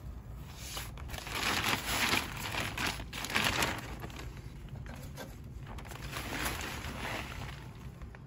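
Plastic bag of garden substrate crinkling and rustling as a hand digs into it and a trowel scoops out soil, loudest in the first half, with more rustling later on.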